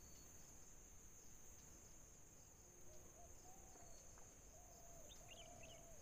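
Near silence: a faint, steady high-pitched insect drone, with a few faint short bird calls from about halfway through.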